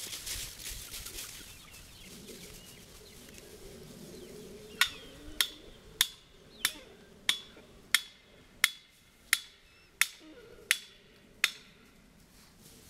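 About a dozen sharp, evenly spaced strikes, roughly three every two seconds, each with a short ring: a fence post being hammered into the ground. Chickens clucking near the start.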